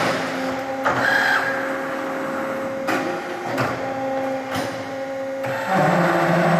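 CNC pipe-bending machine working through a bending cycle on 27.2 mm pipe: a steady motor whine with shorter tones switching in and out as its axes move in steps, and sharp clicks or knocks every second or two.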